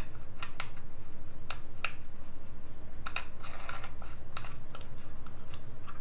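Light, irregular clicks and brief scrapes of a mixer-grinder jar's plastic drive coupling being fitted and turned by hand onto the blade shaft under the jar.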